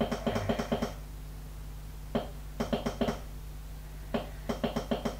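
Quick runs of clicks from the ZW-CT1 VFD inverter's keypad arrow button, pressed again and again in three bursts, stepping the acceleration time down. A steady low hum runs underneath.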